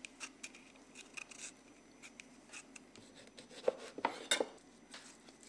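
Vegetable peeler scraping in short strokes over a raw quince, then a knife cutting through a lemon and knocking about four times on a wooden cutting board near the end.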